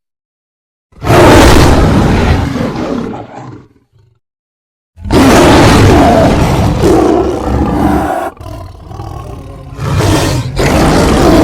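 Lion roar sound effects: one loud roar about a second in that fades out over about three seconds, then after a second of silence a longer run of loud roars, dipping briefly before another roar near the end.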